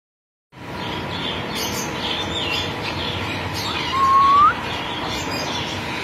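Small cage birds chirping and twittering over a steady background hiss, with one clear whistle, rising in pitch, about four seconds in.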